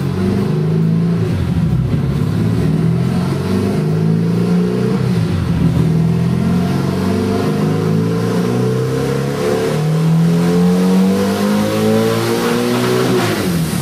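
VW Beetle's air-cooled flat-four engine revving under load on a chassis dyno: a dyno pull, the pitch climbing steadily for several seconds, then falling away sharply near the end as the throttle is closed.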